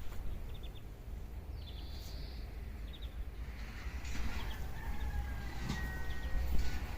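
A rooster crowing, with a long held call about four seconds in, over a low steady rumble and short high chirps.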